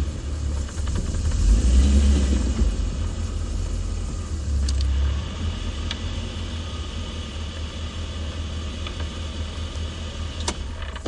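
Chevrolet Silverado 2500HD pickup with a 6.0-litre LQ4 V8 under way, a steady low engine and drivetrain rumble that swells about two seconds in. A few sharp clicks stand out near the middle and near the end.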